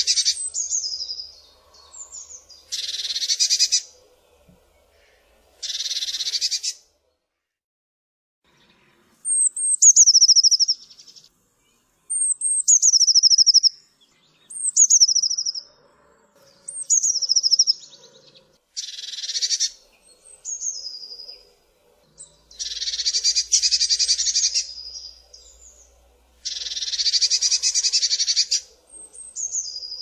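Eurasian blue tit calling. Harsh churring scold calls, each about a second long, alternate with high whistled notes that slide down into a short trill, with brief pauses between them.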